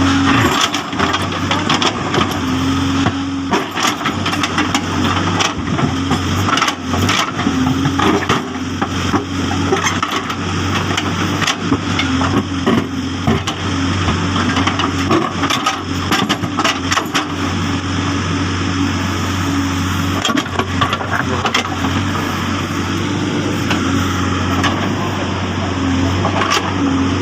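Case backhoe loader's diesel engine running steadily under load, with frequent sharp knocks and clatter throughout.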